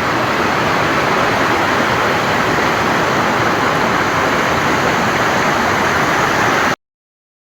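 Waterfall: steady rushing of falling water, loud and even, which cuts off suddenly near the end.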